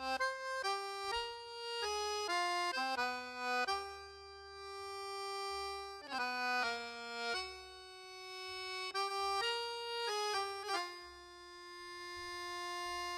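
Background music: a slow melody played one note at a time on a reedy-sounding instrument, with several notes held for about two seconds.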